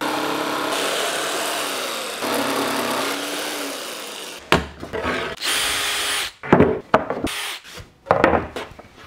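Electric jigsaw cutting a curve through particleboard, its motor note sagging partway through as the blade works the curve. It stops about four seconds in, runs again briefly, and is followed by several knocks and thumps as the cut board is handled on the bench.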